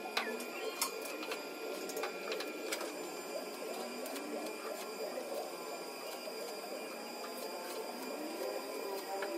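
Arc welding on a steel angle-iron frame, heard from a few metres away: a steady whine with scattered sharp clicks and crackles.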